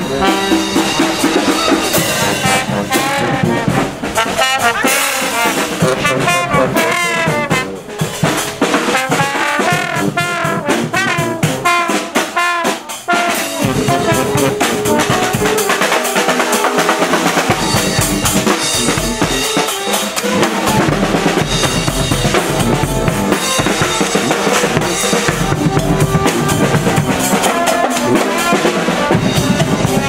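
Street brass band playing live: horns carry a wavering melody over drums and sousaphones. About halfway through the horns break off briefly, then drums and low brass drive a strong steady beat.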